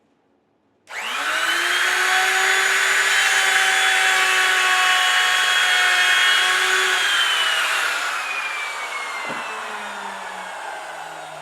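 Electric router motor switched on, spinning up to speed within a second and running steadily with no cutting load. It is then switched off and winds down slowly with a falling whine. A light knock is heard during the wind-down.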